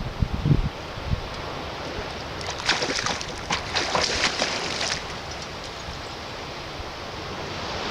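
Running water, a steady rush, with a choppier, splashier stretch in the middle.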